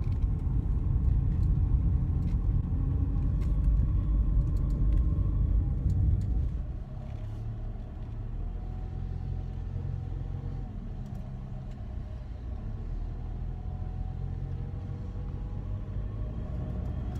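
Car driving: steady low engine and road rumble. It is louder for about the first six and a half seconds, then drops and settles to a quieter steady rumble.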